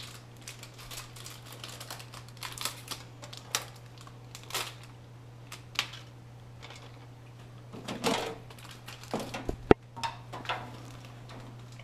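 Irregular clicks, taps and knocks of hands working on a desktop computer case and its parts, with one sharp snap about ten seconds in, over a steady low hum.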